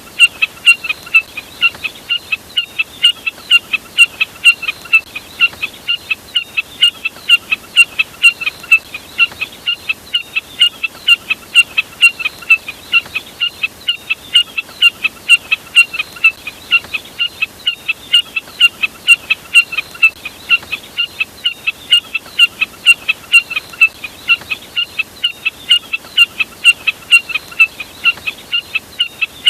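Snipe call, the uploader's jack snipe ('burcet'), repeated over and over as a bird-lure recording: a steady, even run of short, sharp notes, about three a second.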